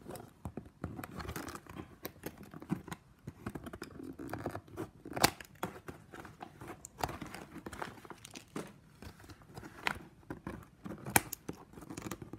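Scissors snipping off the excess ends of plastic strapping band, with the stiff plastic strips crinkling as they are handled. A handful of sharp clicks stand out among the rustling.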